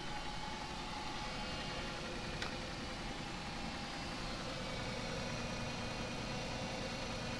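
Chrysler 300's V6 engine idling steadily on freshly replaced spark plugs, running smoothly.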